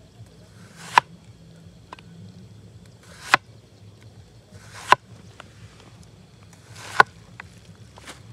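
Cleaver slicing through a cucumber and knocking down onto a plastic cutting board: four slow chops about two seconds apart, each a brief crunch through the cucumber ending in a sharp knock on the board.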